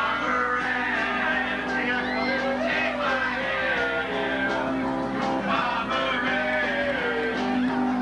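Live band playing a rock-and-roll song, with several voices singing over held chords.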